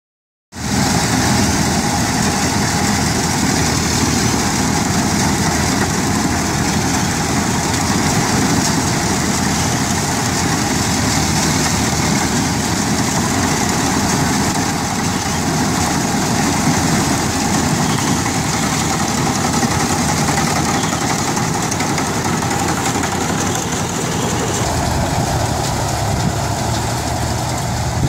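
Combine harvester running steadily as it cuts and threshes standing rice paddy: a loud, even, dense mechanical noise that starts suddenly about half a second in.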